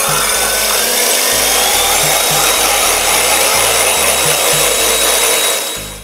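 Electric hand mixer running steadily, its beaters whirring through two egg whites in a glass bowl as they are whipped to foam; a steady motor whine over the whirr, fading out near the end.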